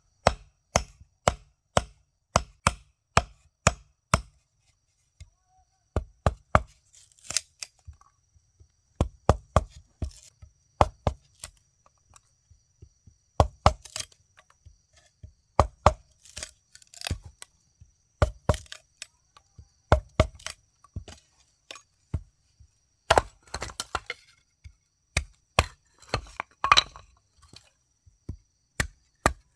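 Repeated sharp chopping strikes of a blade, in runs of about two a second broken by short pauses.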